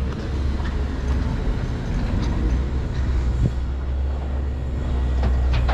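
Truck engine running at low speed with a steady low rumble as it tows a loaded dump trailer slowly over a dirt yard, heard with the driver's door open. A single short knock comes about three and a half seconds in.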